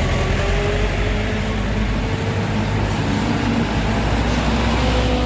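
Heavy truck engine running steadily with a deep rumble, its pitch creeping slowly upward over the first couple of seconds.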